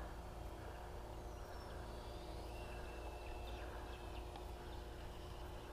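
Faint outdoor ambience: a steady low rumble on the microphone with a few faint, high bird chirps.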